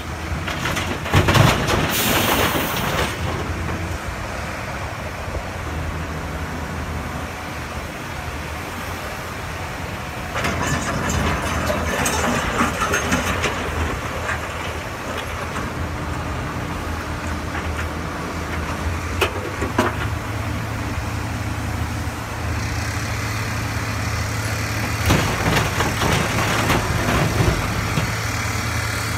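Komatsu PC350 excavator's diesel engine running steadily under load, with a dump truck's diesel running alongside. Rock and dirt crash into the truck's steel bed about a second in, the bucket scrapes through rocky ground around the middle, and the engine works harder from about two-thirds through as another load is tipped into the bed near the end.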